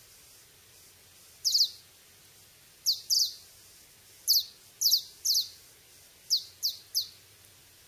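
Short, very high-pitched chirps, each dropping slightly in pitch. About nine of them come in small clusters of one to three.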